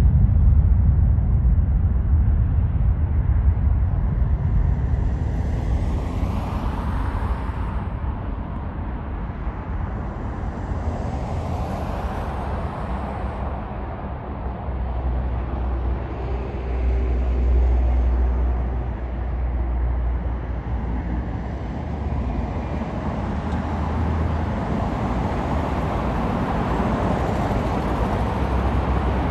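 Road traffic: a steady low rumble of vehicles with the rush of several passing by in swells, the loudest a little past the middle.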